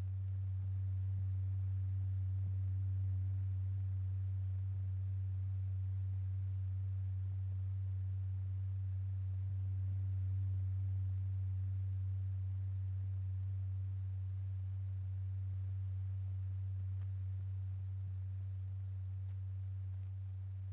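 A steady low pure tone, the note that sets a paper diaphragm strewn with lycopodium powder vibrating in a cymatics experiment; its pitch holds while its loudness swells and eases slightly.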